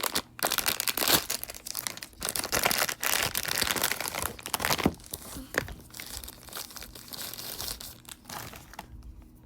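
Blind-box packaging being crinkled and torn open by hand: a dense run of crackles and sharp clicks, busiest in the first half and quieter toward the end.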